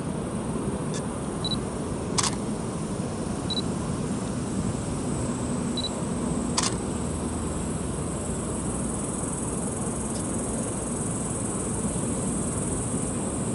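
Outdoor background noise: a steady low rumble with a thin, high insect trill, broken by two sharp clicks, one about two seconds in and another about four seconds later, and a few faint short pips.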